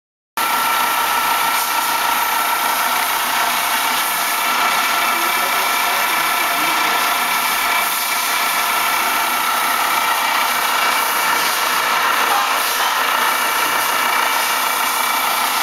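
Bracker RN280 orbital riveter running under power: a steady machine hum and whine with several held tones and no riveting strokes.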